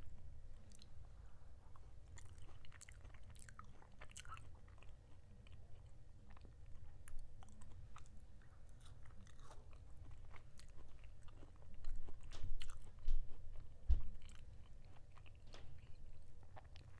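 Close-miked chewing and biting of food: many small irregular crunchy clicks over a steady low hum, growing louder about twelve seconds in.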